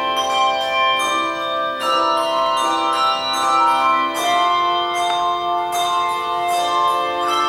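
Handbell choir playing an Irish tune: several handbells struck together in chords about twice a second, each note ringing on and overlapping the next.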